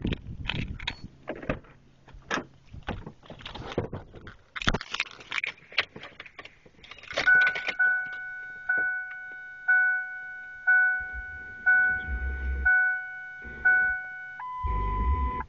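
Keys clicking and rattling as they are handled. Then a car's warning chime dings steadily about once a second, and near the end it changes to a different single tone.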